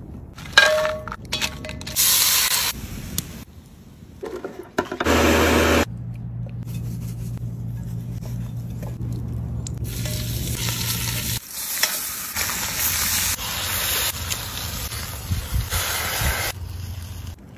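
Cooking sounds cut together: beef short ribs sizzling as they sear in a cast-iron Dutch oven over a wood fire, between short spells of hands handling the meat and the pot. The sound changes abruptly several times, with a long stretch of steady sizzling near the end.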